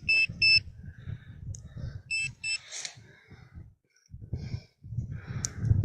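Handheld metal-detecting pinpointer beeping in short high electronic pulses: three quick beeps at the start and three more about two seconds in, the signal of a metal target close to the probe in the hole. Low rustling and handling noise from working the soil runs between the beeps.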